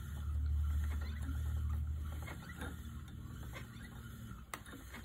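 Wooden treadle spinning wheel running: a low whirr from the turning wheel and flyer that eases off about two seconds in, with a light click roughly once a second as the wool winds onto the bobbin.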